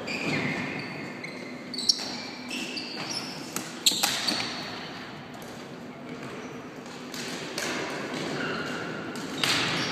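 Floorball play in a reverberant sports hall: trainers squeaking on the sports floor and sharp clacks of sticks striking the plastic ball, the loudest about two and four seconds in.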